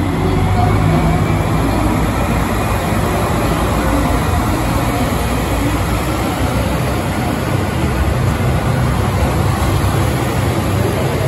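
JR Hokkaido KiHa 283 series diesel multiple unit pulling slowly out of the platform, its diesel engines running steadily with a mostly low-pitched sound.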